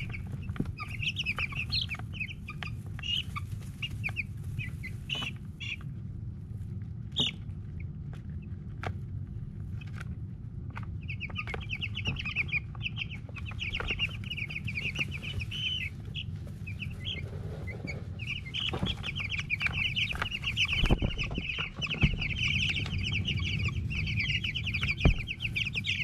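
Cornish cross chicks peeping: many short, high cheeps, scattered at first and becoming a dense, continuous chorus in the second half. Scattered sharp taps and knocks sound over a steady low hum.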